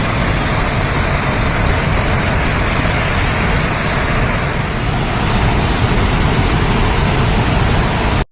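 Steady loud roar of floodwater rushing out through a dam's gates, with a heavy low rumble; it breaks off abruptly at the very end.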